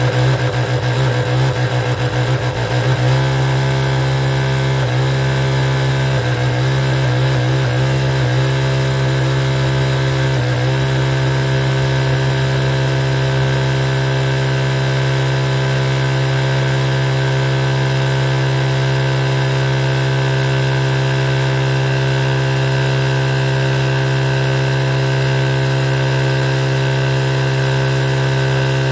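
Electric sewing machine running and stitching with a steady motor hum; it falters and stops briefly a few times in the first ten seconds or so, then runs on without a break.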